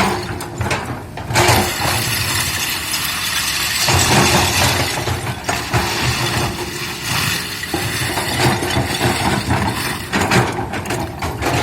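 Komatsu PC200-8 hydraulic excavator at work: its diesel engine runs steadily under varying load, with loud, uneven crunching and clattering throughout.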